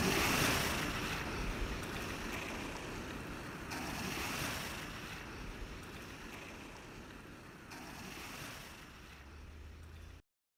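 Ocean-wave ambience at the tail of a lo-fi hip-hop track, with the beat gone: a haze of surf that swells about every four seconds and grows fainter, then cuts off to silence near the end.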